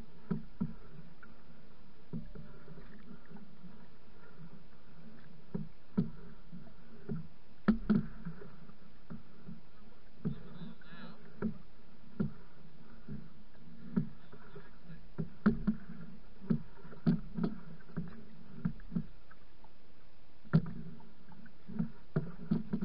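Canoe being paddled on a choppy, windy lake: a steady wash of water against the hull, broken by irregular sharp knocks and slaps on the canoe, roughly one a second.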